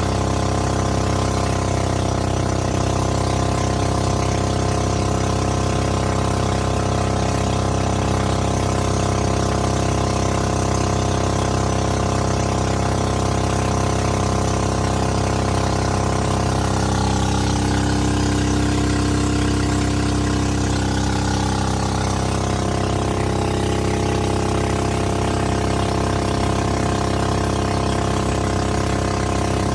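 A small boat's 13 hp engine running steadily, with a brief change in pitch about two-thirds of the way through before it settles back.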